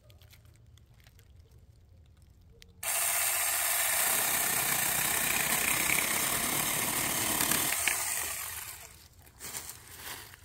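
Saker mini cordless electric chainsaw (4-inch bar, 20-volt battery) switching on about three seconds in and cutting through a tree branch for about five seconds, then winding down, followed by a few light knocks.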